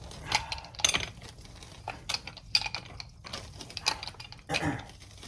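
Wrenches clinking and knocking against brass pipe fittings while an old ball valve is unscrewed: a string of irregular metallic clicks and taps.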